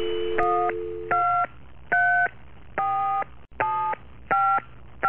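Telephone dial tone that stops about a second in, overlapped and followed by touch-tone keypad beeps as a number is dialled: six short two-note tones, one roughly every three-quarters of a second.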